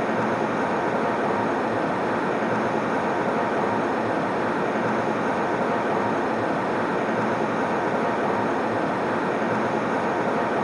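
Steady airliner cabin noise in flight: an even, unbroken rushing hum.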